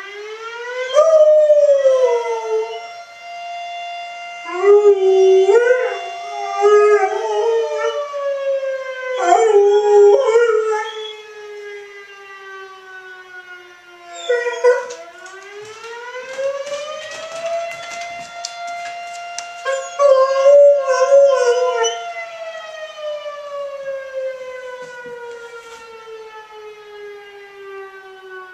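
A fire siren winds up to a steady wail, holds it, then slowly winds down, and does this twice. A dog howls along over it in several wavering bouts of one to two seconds each.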